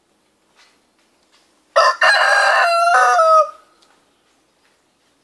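Rooster crowing once, about two seconds in: a single cock-a-doodle-doo of a little under two seconds, ending on a falling note.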